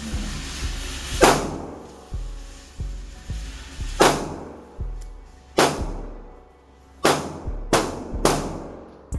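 Six pistol shots from a Glock 19X, a 9 mm handgun, fired one at a time at uneven intervals, with the last three coming faster, each a sharp crack with a short ringing tail. They play over background music with a steady kick-drum beat.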